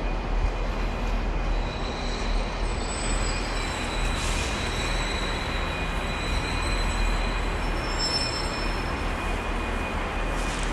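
Passenger train running: a steady low rumble with thin high whining tones above it, and a short hiss about four seconds in.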